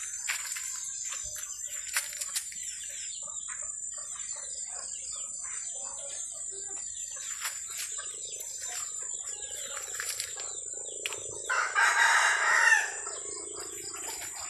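A rooster crows once, loudly, about twelve seconds in, over a background of chickens clucking and small birds chirping.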